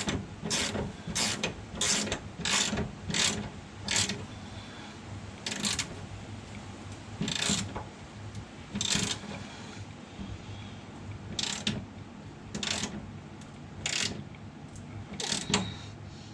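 Hand ratchet wrench tightening bolts, a quick series of ratcheting strokes about every 0.6 s for the first few seconds, then short strokes at irregular intervals with pauses. A steady low hum runs underneath.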